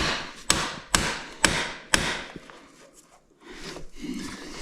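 A hammer tapping the rear axle through the dirt bike's wheel hub and swingarm: five sharp taps about half a second apart, then a pause with a faint rustle before the tapping starts again at the end.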